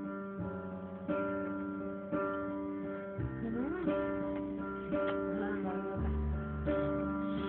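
Background music: acoustic guitar strummed chords, a new strum about once a second.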